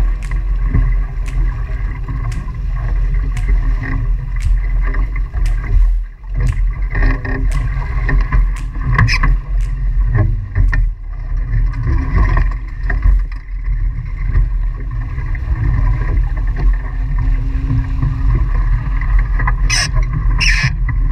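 Heavy wind rumble on the microphone and rushing water as a Nacra 5.0 catamaran sails fast, with sharp ticks about once a second in the first few seconds. Near the end come loud splashes as the boat pitchpoles and the crew go into the water.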